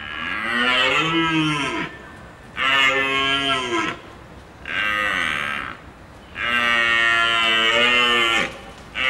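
Deer stag bellowing: a series of long, low calls, each rising and then falling in pitch, with short pauses between them.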